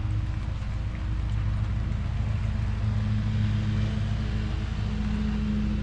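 A machine running with a steady low hum, holding an even pitch.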